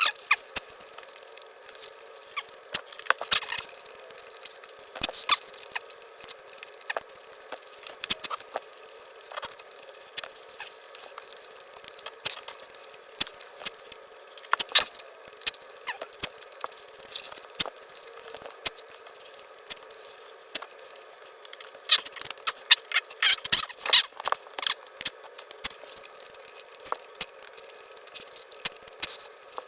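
Close-up eating sounds: a person chewing and crunching flaky puff-pastry steak bakes, scattered crackles and clicks, with a denser run of crackling about 22 to 25 seconds in.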